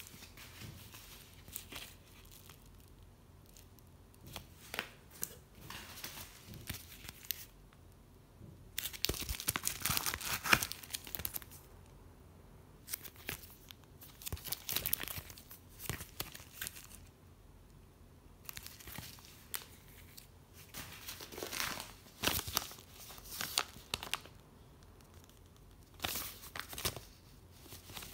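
Plastic card sleeves and shipping packaging being handled, crinkling and tearing in irregular bursts with short quiet gaps, loudest about a third of the way in.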